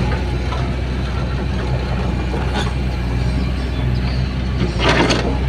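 Kobelco SK75 excavator's diesel engine running steadily, with a short clatter about five seconds in.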